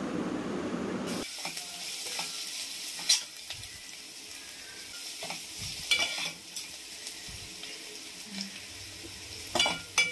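Sliced onions and green chillies frying in oil in an aluminium kadai, with a steady sizzle while a metal slotted spoon stirs them. The spoon scrapes and clicks against the pan now and then. A steady rushing noise cuts off about a second in.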